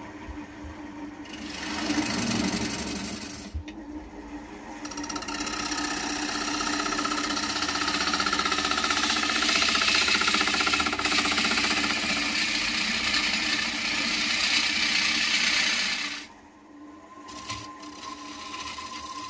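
Wood lathe running while a gouge hollows out the inside of a spinning hardwood bowl. The cutting noise starts about a second in, breaks off briefly after a couple of seconds, then runs steadily for about eleven seconds and stops near the end, leaving the lathe's motor hum.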